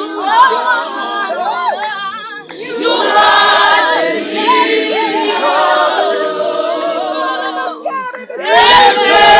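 A group of voices singing together without instruments, with short breaks between phrases about two and a half seconds in and again near the end.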